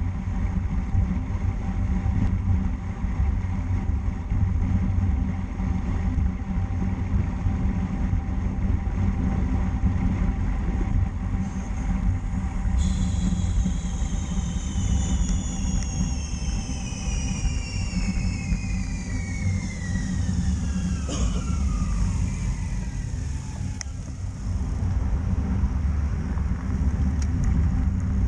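Wind rushing over the microphone and tyre rumble from a road bike riding at speed, steady throughout. About halfway in, a high whine starts suddenly and falls steadily in pitch for about ten seconds before fading out.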